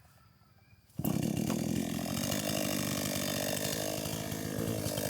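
A chainsaw starts abruptly about a second in and runs at high speed; its pitch sags for a couple of seconds and then recovers, as the engine slows under load while cutting wood.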